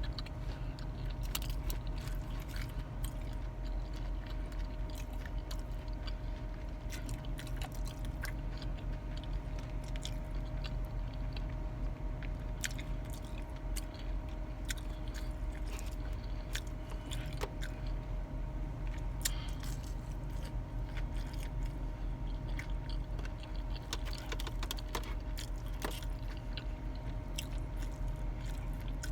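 Close-up chewing and crunching of food, with many short crisp bites scattered throughout, over a steady low hum.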